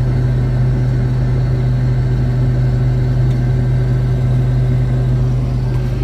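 Combine harvester running steadily, heard from inside the cab as a loud, even drone with a strong low hum while its unloading auger empties grain into a cart.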